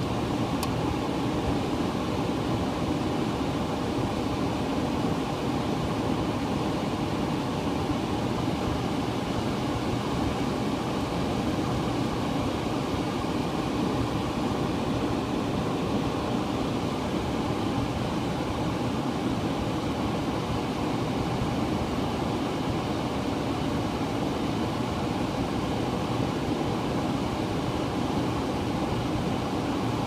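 Trane air handler's blower motor running steadily, still on after the thermostat call for fan has been removed while the new time-delay fan relay holds it on for its off-delay.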